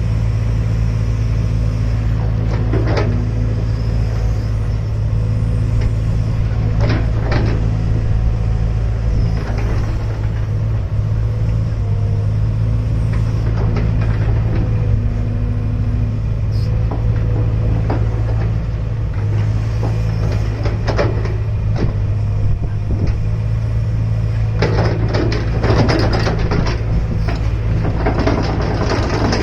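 Hydraulic excavator's diesel engine running steadily with a low hum, with a few short scraping noises as it works, several of them close together near the end.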